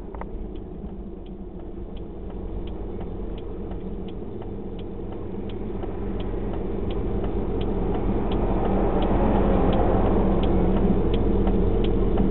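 A car's indicator relay ticking steadily, about two ticks a second, over the engine and road noise heard from inside the moving car. The engine and road noise grow louder from about halfway through.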